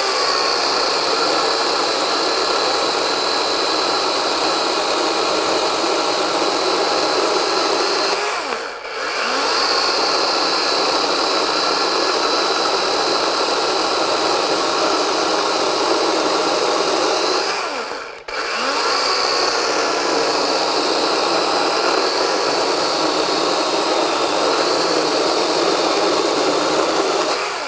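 Cordless DeWalt 12-inch XR chainsaw cutting through hard wood under load, in three long runs of about nine seconds, easing off briefly twice between them. It is running on a 9 Ah FlexVolt battery that holds at mid-19 volts all the way through, even when pushed.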